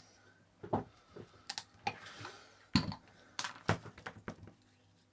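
Hands handling a plastic mini tricopter frame and small electronic parts on a cutting mat: a run of about eight irregular clicks and knocks, the loudest about three seconds in.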